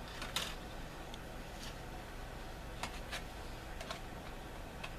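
Half a dozen faint, scattered clicks and taps of plastic wing panels from a 1/72 Airfix Victor kit being handled and test-fitted together, over a low steady hum.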